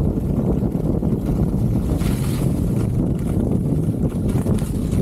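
Wind noise buffeting the camera microphone as a skier runs fast down a groomed slope, a steady low rumble, with the skis' edges hissing on hard-packed snow underneath.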